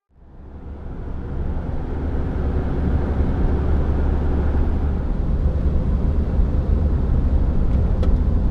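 Steady low rumble and rushing noise of a moving vehicle, fading in over the first couple of seconds.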